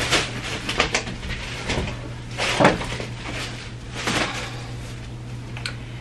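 Plastic shopping bag rustling and items knocking as they are lifted out of it, in several short bursts.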